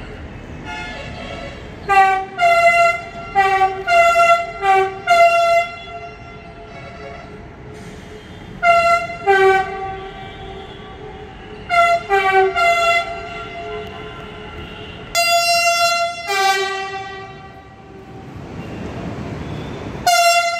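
Metro train horn sounded again and again: groups of quick short toots that alternate between two close pitches, then two longer blasts about three-quarters of the way in and a short one near the end. A steady low rumble runs underneath.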